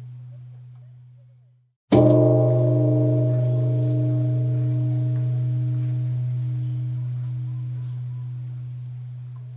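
Buddhist pagoda bell struck once, about two seconds in, just after the previous stroke has died away. It rings with a deep steady hum and several higher overtones that fade slowly.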